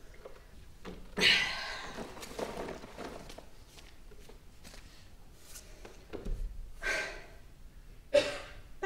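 A person's audible breaths and sighs, four short ones, the first and loudest about a second in.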